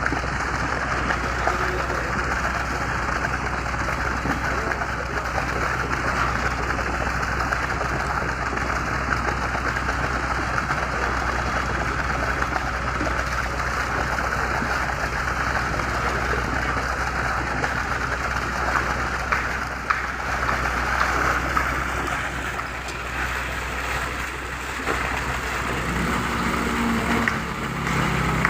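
Concrete pump truck's engine running steadily under load during pumping, with a constant mechanical noise over a low hum. A second steady tone comes in near the end.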